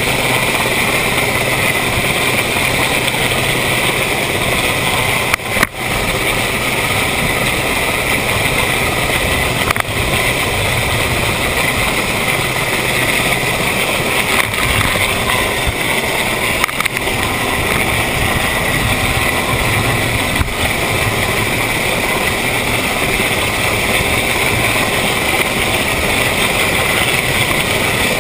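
Steady roar of a D-class inshore lifeboat's outboard engine at speed, mixed with rushing wind and the rotors of an RAF Sea King helicopter hovering close overhead.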